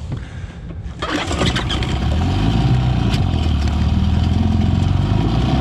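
Yamaha 25 hp two-stroke outboard being pull-started. It catches about a second in and then runs steadily, restarting on fresh fuel after its tank ran dry and was switched over.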